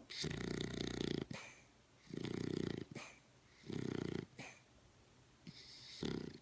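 Snoring: four snores, about one every two seconds, each a low rasping buzz; the last is shorter and hissier.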